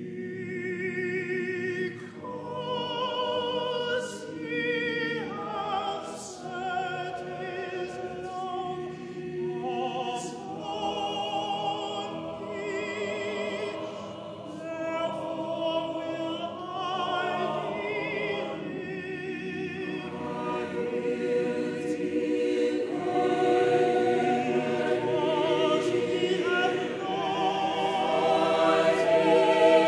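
A mixed choir singing a gospel-style spiritual, with a solo voice carrying a wavering vibrato line over the sustained choral parts. The sound grows louder over the last third.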